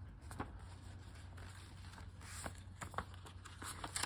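Faint paper rustling with a few short, soft crinkles as an old folded paper travel booklet is opened and its pages are turned by hand.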